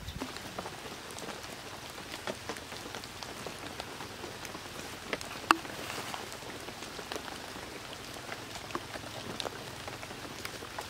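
Wet clay-mud being pressed, patted and smoothed by hand onto a mud stove: scattered soft wet slaps and squelches over a steady hiss, the sharpest slap about five and a half seconds in.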